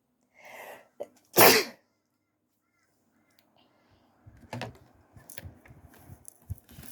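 A person sneezing once: a short breathy in-breath, then one loud, sharp sneeze about a second and a half in. Softer scattered rustles and clicks follow in the second half.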